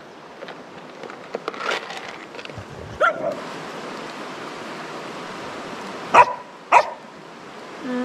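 A dog gives one short bark about three seconds in, then two loud barks close together about six seconds in, over the steady rush of a mountain stream.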